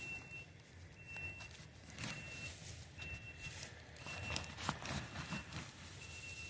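Faint rustling and scraping of hands sifting through damp leaf bedding in a plastic tote worm bin, with scattered small clicks. Behind it a high electronic beep repeats about once a second.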